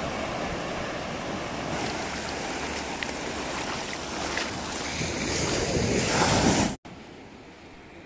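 Shallow surf washing in over sand, a steady rushing wash with wind on the microphone. The wash swells to its loudest and then cuts off abruptly about two-thirds of the way in, giving way to a quieter, steady surf.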